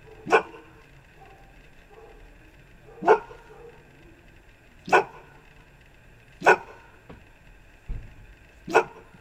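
A dog barking: five single, short, loud barks spaced about one and a half to two and a half seconds apart.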